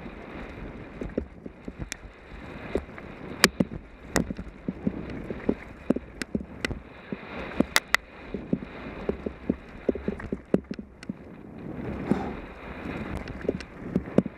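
Mountain bike running down a rough dirt singletrack: steady tyre and wind noise on a helmet-mounted microphone, broken by frequent irregular sharp clicks and knocks as the bike jolts over bumps.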